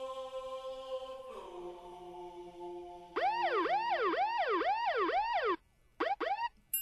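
A held, steady chord of tones that steps down in pitch about a second and a half in, then a siren-like tone wailing up and down about twice a second for a few seconds. It cuts off suddenly and comes back for two short swoops near the end.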